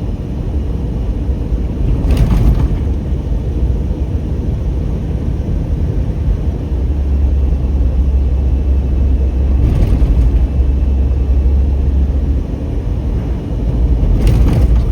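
Car cabin noise while driving: a steady low rumble of engine and road, with a few brief knocks.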